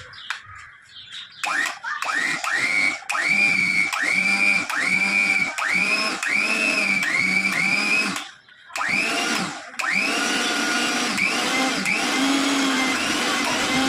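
Mixer grinder motor switched on in about a dozen quick pulses, each a whine rising in pitch. It stops briefly about eight seconds in, then runs in longer stretches.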